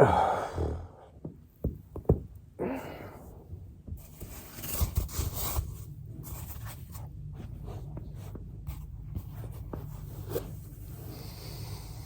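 A person exhaling hard and breathing while working on a foam roller, with a few sharp joint cracks in the first two seconds. From about four seconds in there is a low steady rumble with scattered faint clicks.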